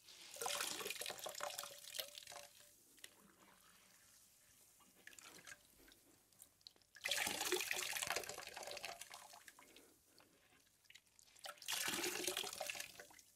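Underwater water noise and bubbling in three bursts, each a second or two long, with near silence between them.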